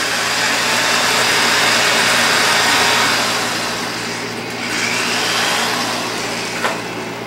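Handheld electric drill running continuously as its bit bores into a piece of elk antler, the bit grinding through the antler. About four to five seconds in, the drill's pitch dips and then climbs again.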